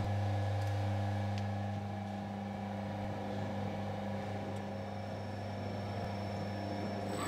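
Steady low mechanical hum with several overtones, dropping slightly in level about two seconds in.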